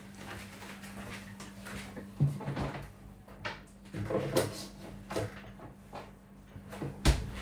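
Kitchen clatter: a few knocks and clunks of doors and things being handled, the loudest a sharp thump near the end, over a steady low hum.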